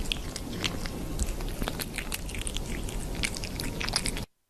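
A cat's paws tapping and scraping against a glass pane in a quick, irregular run of light taps over a steady background hiss.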